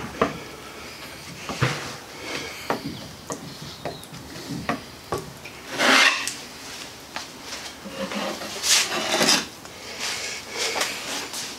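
Hand spreader scraping TotalFair epoxy fairing compound over a plywood boat bow in short, irregular strokes with small knocks. The loudest strokes come about halfway through and again a little later.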